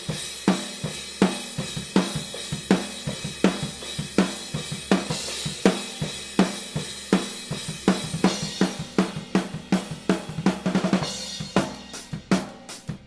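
Drum kit played in a steady groove, recorded raw and unprocessed through a pair of AKG C-214 overhead microphones: regular snare and bass-drum hits under ringing cymbals. Near the end the strokes come busier and faster, like a fill.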